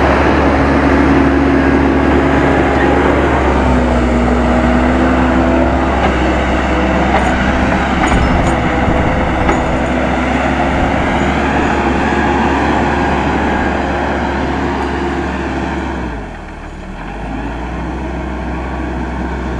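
Case 580M backhoe loader's diesel engine running under load, its pitch shifting a little as the work changes. It eases briefly near the end, then picks up again.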